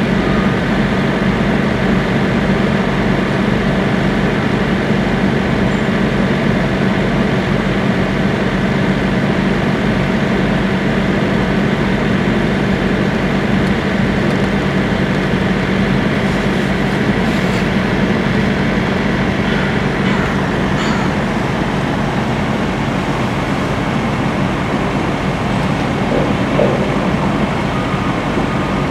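Steady low diesel drone of a heavy truck idling close by, over the rolling noise of a long freight train's boxcars passing through the crossing.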